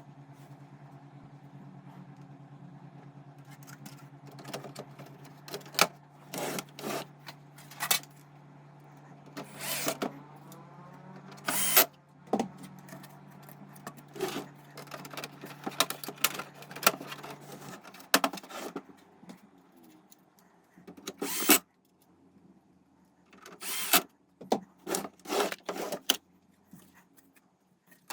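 Small hard parts and tools being handled during restoration work on a hi-fi unit: irregular clicks, taps and rattles. Under them runs a steady low hum that stops about two-thirds of the way through.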